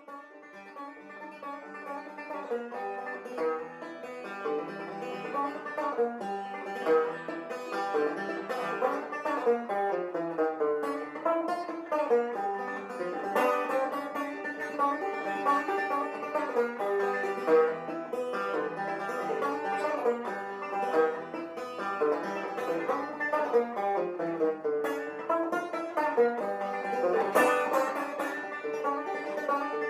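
Banjo music: a plucked banjo tune that fades in over the first few seconds, then plays on at a steady level.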